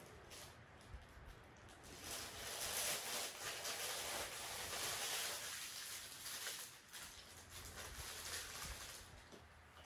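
Pen tip scratching on paper as a drawing is worked in: a rough, rasping hiss of strokes that gets louder about two seconds in and eases off near the end.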